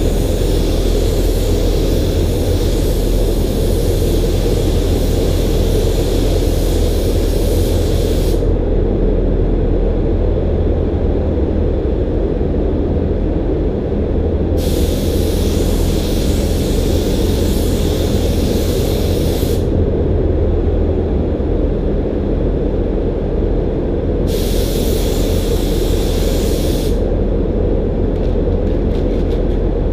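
Air-fed spray gun hissing as it sprays primer, in three long passes: about eight seconds, then about five, then about three, with pauses between. Under it runs a steady low machine rumble.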